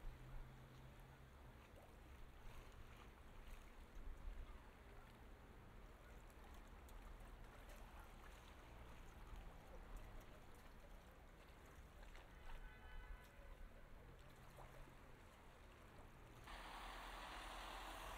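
Faint outdoor street ambience: a low steady rumble with scattered small clicks, and a louder steady hiss setting in near the end.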